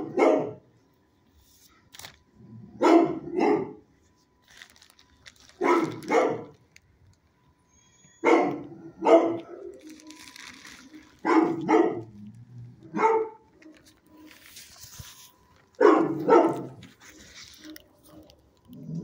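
A dog barking in pairs of barks, repeated about every three seconds, in a shelter kennel block.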